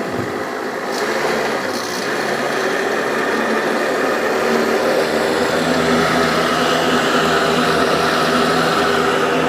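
A 3.5-horsepower boat engine running steadily at part throttle, held below full throttle, and picking up about a second in.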